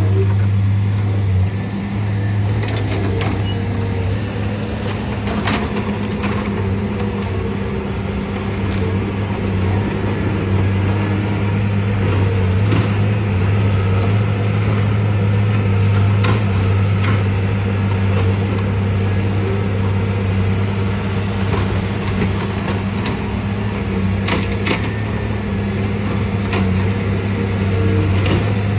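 Tracked excavator used as a log-yarding shovel, its diesel engine running steadily with a deep, even hum. A few sharp knocks and clanks are heard now and then.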